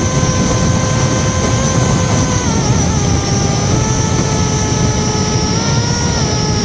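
Electric motor and 6040 propeller of a Reptile S800 Sky Shadow flying wing, a T-Motor F80 Pro brushless motor, running with a steady hum. Its pitch drops about three seconds in as the throttle eases and rises again near the end. A steady high whine and heavy wind rush run along with it.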